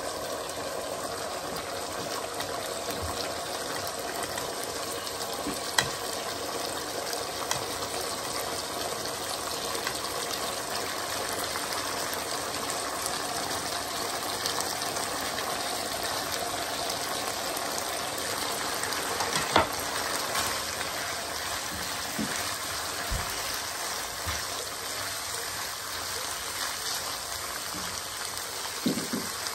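Keema and chopped carrots frying in a nonstick pan, a steady sizzle. A few sharp knocks of the spatula against the pan, the loudest about two-thirds of the way through.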